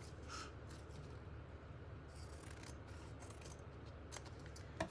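Scissors trimming paper: a few soft, separate snips with pauses between them.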